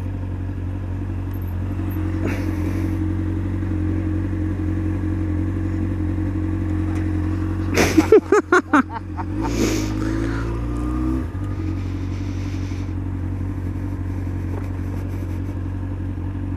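Honda Hornet 600's inline-four engine running steadily at idle and low speed. About eight seconds in there is a quick run of sharp knocks, followed by a brief rise in revs as the bike pulls away.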